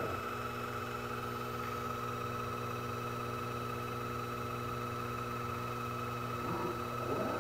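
Sherline CNC chucker lathe running, with a steady hum and whine from its motors as the tool works the end of the spinning part. Near the end, a stepper-driven axis moves and the whine changes pitch.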